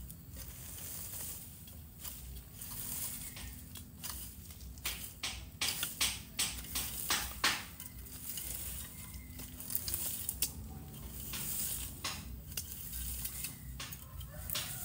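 Garden hoe scraping and chopping through weeds, soil and dry leaf litter in repeated, irregular strokes, with a quick run of sharper strikes about five to seven and a half seconds in.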